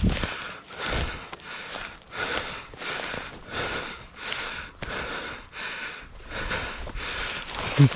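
A man breathing hard and fast, gasping in and out about once or twice a second, out of breath from running.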